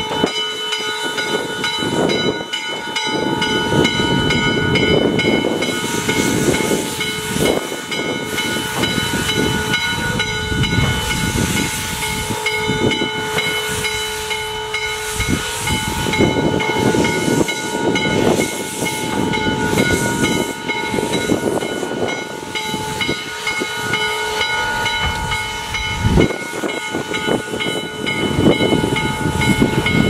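Western Maryland 1309, a 2-6-6-2 articulated steam locomotive, working away under steam. Its exhaust beats are uneven, and there is a loud, continuous hiss of steam from around the cylinders. Several steady high-pitched tones run underneath.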